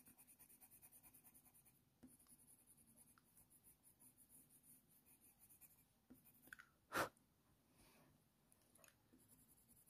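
Faint scratching of a Faber-Castell Polychromos coloured pencil worked with hard pressure on hot-press watercolour paper, most of it in the first second or so, with one brief louder noise about seven seconds in.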